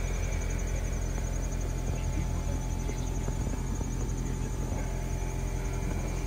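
Insects chirring steadily in a constant high pulsing band, over a steady low hum.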